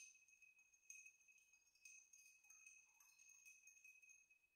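Faint clinking of a twisted metal bar spoon stirring in a cut-glass mixing glass, with the glass ringing on a steady high tone throughout.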